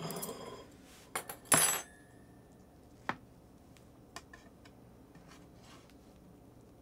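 A knife and fork clinking and scraping against a metal baking tray as a meatloaf is sliced. The loudest is a short clatter about one and a half seconds in, followed by a few light clicks.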